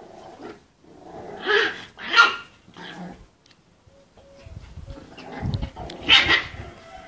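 Puppies play-fighting, giving short, sharp barks and yaps with some growling. There are two loud yaps about one and a half and two seconds in, and another near the end.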